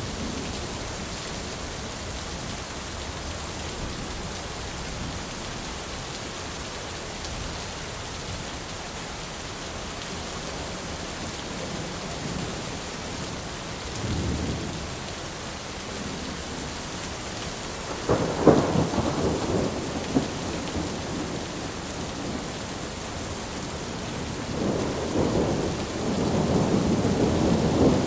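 Steady rain with thunder: a short rumble about halfway through, a louder crackling peal a few seconds later, and another rolling rumble building near the end.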